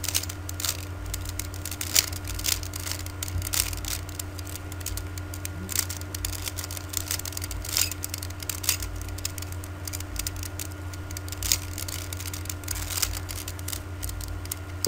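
Rubik's cube being turned by hand: irregular plastic clicks and rattles as the layers are twisted, over a steady electrical hum.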